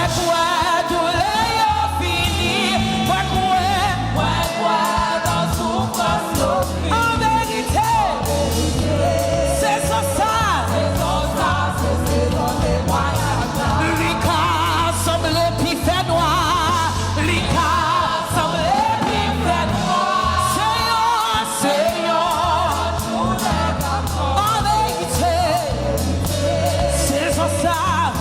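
Live gospel worship song: voices singing with vibrato, backed by other singers, over a band with bass and drums.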